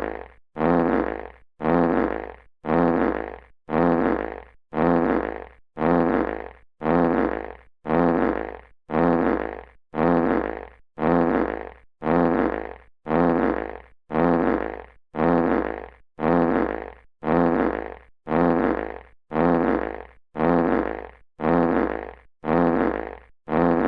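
Classic fart sound effect played on a loop: the same short blurt repeats about once a second, each one starting loud and fading away, with a brief gap of silence before the next.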